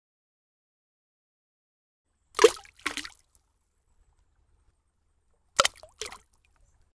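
Cartoon splash sound effects of an egg plopping into a bucket of paint: two short double plops, one about two and a half seconds in and another just before six seconds.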